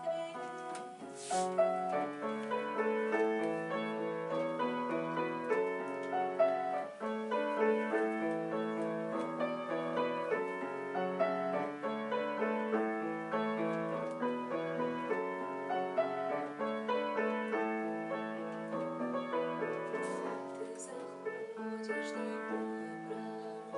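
Grand piano playing on its own, a continuous run of even notes: the instrumental interlude of a song for soprano and piano.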